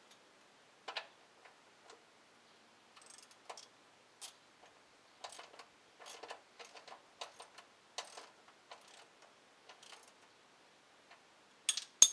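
Light metallic clicks and taps from hand tools being worked on the underside of a car while the oil filter and drain bolt are loosened for an oil change. The clicks come singly and in small irregular groups, with a few sharper clicks near the end.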